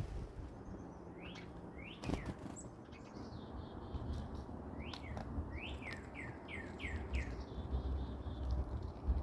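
A bird calling with short whistled notes that slide downward: a couple of single notes, then a quick run of about five soon after the middle. Low wind rumble lies underneath, with a single sharp click about two seconds in.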